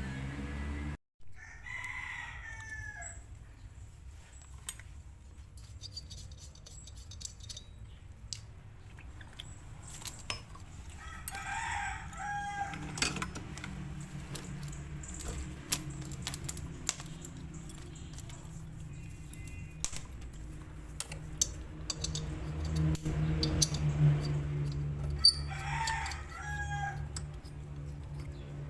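An animal's pitched call, heard three times, each about a second and a half long and dropping in pitch at the end, over scattered sharp clicks and knocks and a steady low hum.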